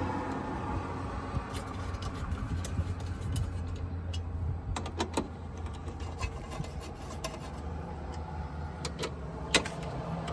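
Scattered, irregular metallic clicks and taps of a 13 mm socket on an extension as the strut-brace bolts are run in by hand, the loudest click near the end. A steady low rumble lies underneath.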